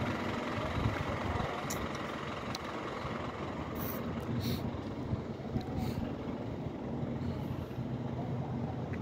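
Steady low rumble of motor-vehicle noise with a faint hum running through it, and a few light clicks.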